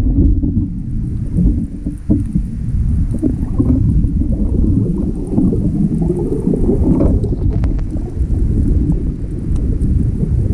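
Muffled low rumble of water rushing past an underwater camera housing while swimming, with a few faint clicks.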